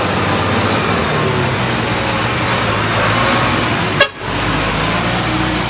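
Heavy diesel engines of trucks or the recovery excavator running loudly and steadily under load. About four seconds in there is a sharp click with a brief dropout.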